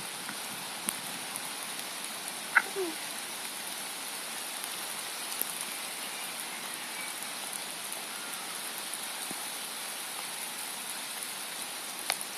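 Steady rain falling, with scattered raindrop ticks. About two and a half seconds in comes one short, sharp sound that drops in pitch.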